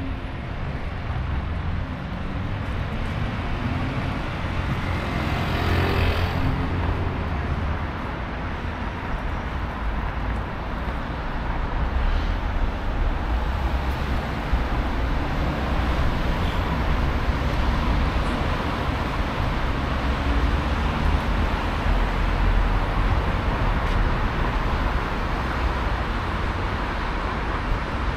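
Road traffic on a city street: a steady rumble of car engines and tyres, with one vehicle passing louder about six seconds in.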